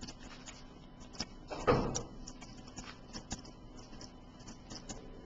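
Low room noise with a few faint, short clicks and one louder soft thump a little under two seconds in.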